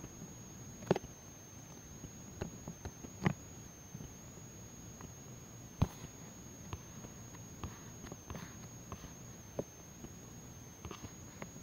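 Faint, scattered taps and clicks at irregular intervals, from fingers handling and tapping the tablet's touchscreen and picked up by its own microphone, over a steady faint hum.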